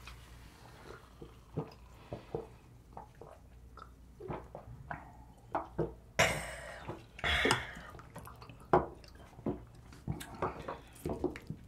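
Soju being sipped from small glass shot glasses at a table: scattered small clicks and mouth sounds, with a short breathy burst about six seconds in and another a little later. Near the end, a metal ladle taps in the soup pot.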